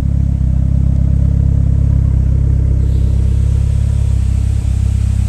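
A car engine running at a steady speed, a loud low rumble with no change in pitch.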